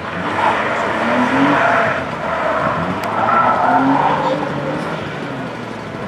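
BMW roadster engine revving up and falling back again and again as the car is flung through a tight cone slalom, with the tyres squealing and scrubbing through the turns.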